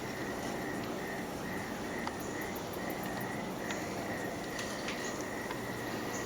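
Insects chirping: a steady pulsing call repeating about twice a second, over a constant low background hum.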